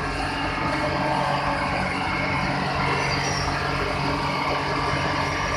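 Sugar mill machinery running: a steady, even industrial drone with a constant hum under it.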